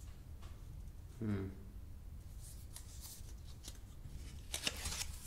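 Quiet rustling and light clicks of hands lifting a smartphone out of its fitted box, with a few sharper clicks near the end.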